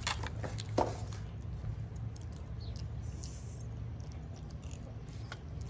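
Faint, scattered wet clicks and smacks of someone chewing food close to the microphone, one sharper click about a second in, over a steady low rumble.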